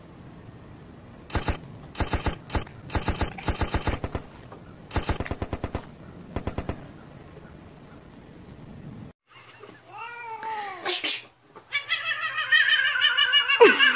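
Several bursts of rapid machine-gun fire, a dubbed sound effect, in the first half. Then a cat meowing, first a couple of short arching meows, then a long, loud, wavering meow near the end.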